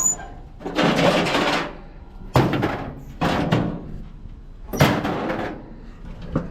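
Metal barbecue grill being dragged and handled: a longer scrape about a second in, then several separate sharp metal clunks.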